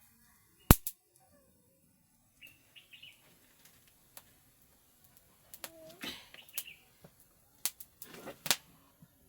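A few sharp, scattered clicks and pops, the loudest a single crack about a second in, with faint short chirps in between.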